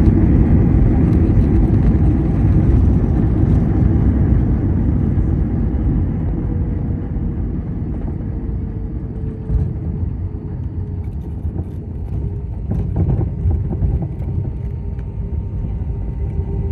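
Airliner cabin noise during a landing: a loud rumble that gradually eases off, with an engine whine sliding slowly down in pitch and a few light knocks about twelve seconds in.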